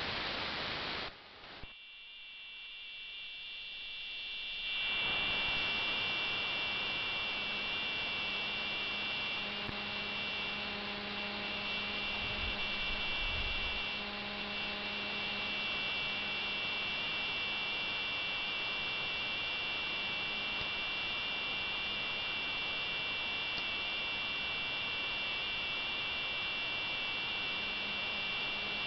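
AM-demodulated audio from a software-defined radio tuned near 48.5 kHz. It starts as hiss that drops out about a second in and builds back over a few seconds, then settles into steady hiss with several high steady tones and a low hum.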